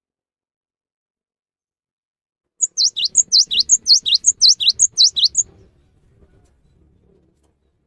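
Cinereous tit (gelatik batu) singing: a quick run of high whistled notes, each sweeping downward, repeated about six times over some three seconds, starting a little over two seconds in.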